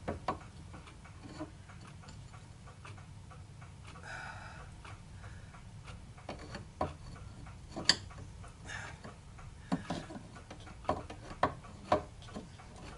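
Scattered light clicks and taps of small metal parts being handled as a micrometer stop is fitted back into place on a small lathe, the taps coming closer together in the second half.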